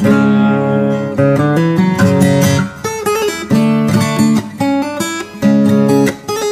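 Steel-string acoustic guitar played fingerstyle with no singing: a plucked melody over bass notes, each note ringing and fading, with brief dips between phrases.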